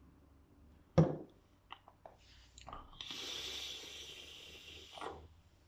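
A sharp knock, a few light clicks, then a steady hiss for about two seconds as a drag is taken on a freshly dripped vape atomiser fired at 65 watts, ending in a short breathy puff.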